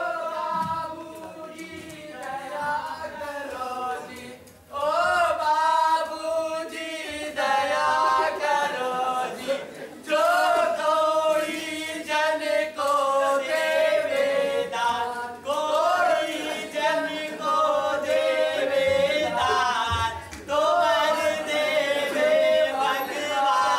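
A group of actors singing together in a chant-like song, in phrases of about five seconds separated by brief pauses.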